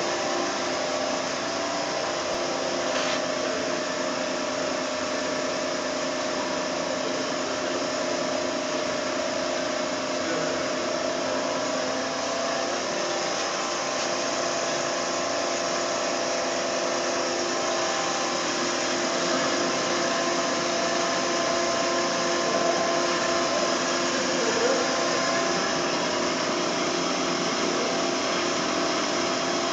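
Everising S-460HF metal-cutting band saw running: a steady machine hum with several held tones over a noisy whir.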